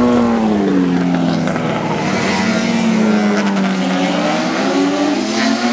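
Classic racing motorcycle engine running hard at high revs as it passes close by; its note sinks slowly, then climbs again in the second half as it accelerates.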